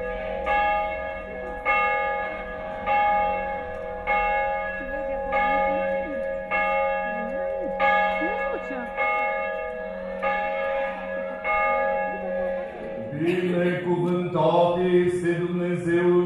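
A church bell tolling, struck about once every second with a long ring between strikes. About thirteen seconds in, voices begin chanting over a steady held note.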